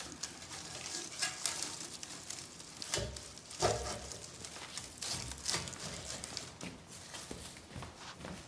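A bundle of dry brush twigs tied with vines rustling, scraping and knocking as it is forced into a wood stove's firebox, with a few louder knocks about three seconds in.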